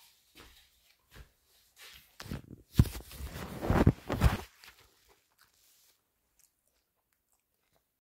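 Handling noise from a phone camera being moved about: a few light knocks, then close, loud rustling and scraping over the microphone that stops about four and a half seconds in.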